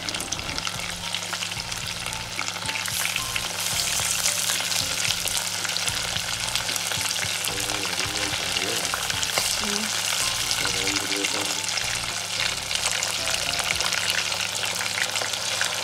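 Marinated, masala-coated chicken pieces sizzling and crackling in hot oil as they are dropped into the pot one at a time. The sizzle grows louder a few seconds in.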